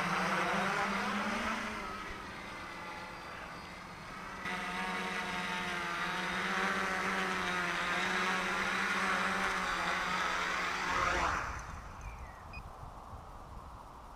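Dart 450 quadcopter's electric motors and propellers buzzing in flight, the pitch wavering up and down with the throttle. About eleven seconds in the motors cut and spin down with a falling whine, leaving a low rumble.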